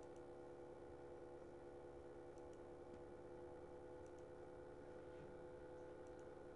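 Faint computer mouse button clicks, several in quick pairs, over a steady low hum.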